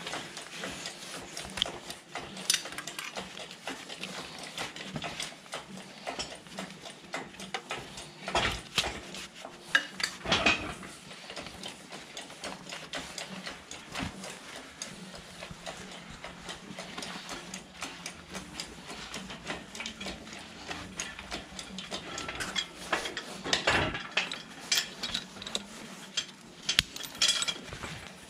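Irregular metallic clinks, clanks and knocks of a lifting chain, steel hook and tools being handled against a tractor's cast-iron rear axle housing while it is rigged for lifting, loudest in a few clusters.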